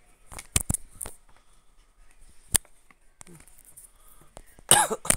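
A few sharp clicks and taps, then near the end a brief louder burst of noise.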